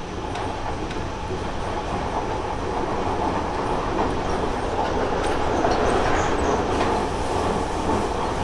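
Seibu 30000 series electric train running along the line, heard from inside a motor car: steady wheel-and-rail running noise with a few faint clicks, growing gradually louder.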